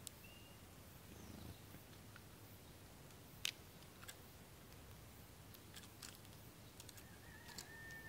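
Faint, scattered sharp clicks of a sparrow's beak picking seed at a plastic tube feeder's port, the sharpest about three and a half seconds in. A short high bird chirp comes near the start and a long thin whistle near the end.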